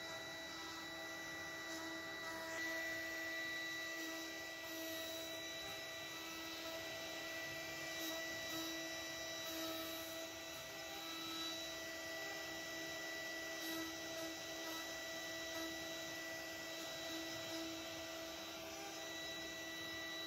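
CNC wood router running, its spindle giving a steady high whine over the noise of the bit cutting a fretwork pattern into a wooden panel.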